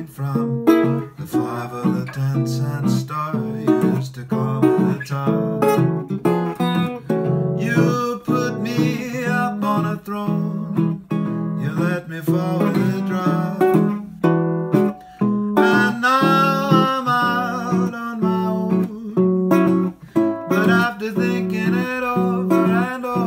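National Duolian steel-bodied resonator guitar played solo fingerstyle in a stride rhythm, alternating bass notes with chords in a swing jazz standard.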